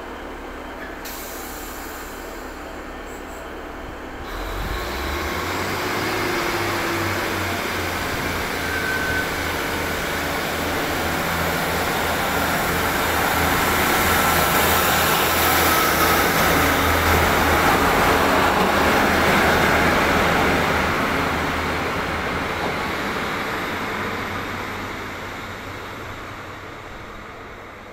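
Class 150 Sprinter diesel multiple unit pulling away along the platform. Its diesel engines open up about four seconds in, and the engine note and running noise swell as the train passes close by, then fade as it draws away.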